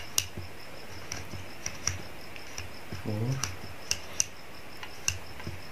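Numbered combination dials of a five-digit steering wheel lock being turned by hand, giving about ten sharp, irregular clicks as the wheels snap from number to number while a new code is set.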